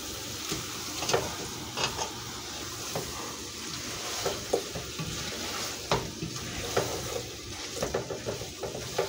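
Chicken drumsticks sizzling in a pot of spices while a cooking spoon stirs them. The spoon scrapes and knocks against the pot about once a second over a steady frying hiss.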